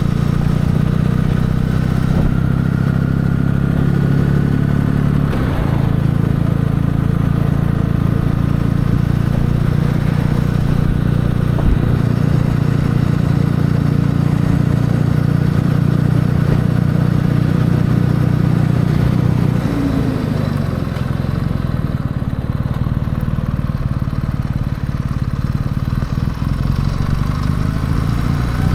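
Kawasaki W650 motorcycle's parallel-twin engine running at a steady pace under way. About twenty seconds in, the engine note eases a little lower.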